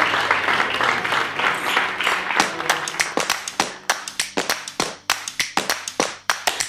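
Crowd applauding: dense applause thins out into scattered single claps that die away.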